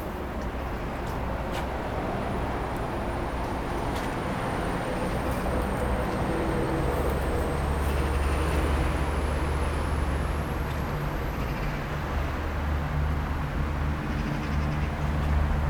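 Steady low rumble of motor traffic, with an engine hum that grows a little stronger about halfway through.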